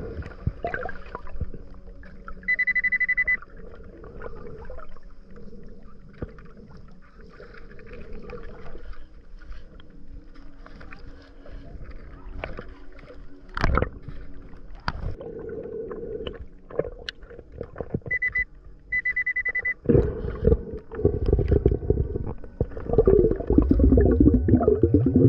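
Underwater metal detector giving a steady high beep for about a second, then two more short beeps around two-thirds of the way in: the signal of a metal target in the sand. Behind it is muffled underwater noise, and near the end a loud low churning rush of water.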